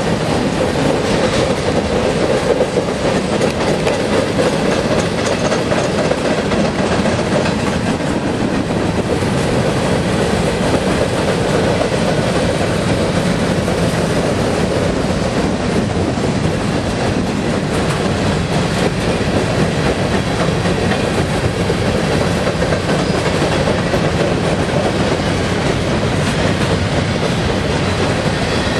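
A freight train's covered hopper cars rolling past, their steel wheels running steadily and loudly on the rails.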